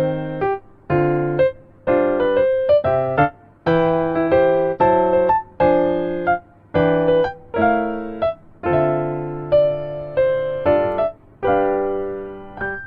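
Background piano music: a steady run of struck chords, each ringing and fading, dying away near the end.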